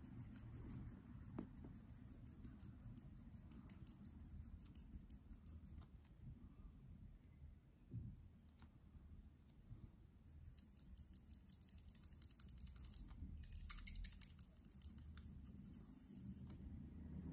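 Faint, rapid scratching of a Copic alcohol marker's nib on paper as it colours in with quick short strokes. It comes in two stretches, with a pause of about four seconds in the middle.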